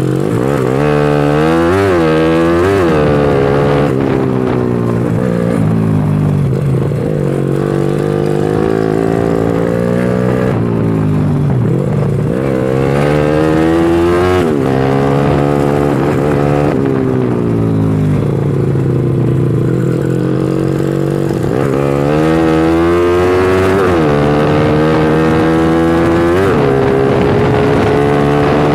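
Honda Astrea Legenda 2's four-stroke single-cylinder engine pulling hard on a test ride, its pitch climbing under acceleration and dropping back at each gear change, several times over. It is running MJ 120/PJ 42 jetting, which the owner finds still too rich at low revs because the pilot jet is too big.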